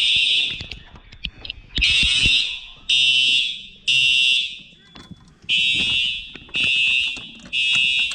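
Fire alarm horns sounding in the temporal-3 evacuation pattern: groups of three loud half-second blasts with a pause between groups. The alarm was set off by pulling a manual pull station. A few small clicks and knocks fall between the blasts early in the pattern.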